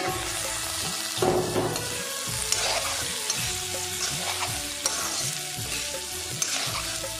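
Jackfruit seeds and pork sizzling as they fry in an aluminium kadai, stirred with a metal spatula that scrapes against the pan in repeated strokes.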